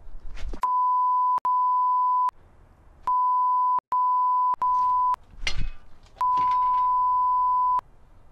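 Censor bleep: a steady, high beep tone in six stretches, each about half a second to a second and a half long, that start and cut off sharply and blank out a man's words. Short noisy sounds come through in the gaps between the bleeps.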